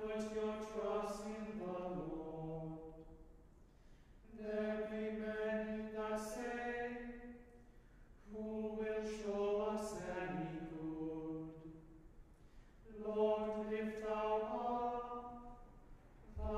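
A small men's choir chanting plainchant in unison at Compline. Four phrases, each held mostly on one reciting note and falling at its end, with a short breath between phrases.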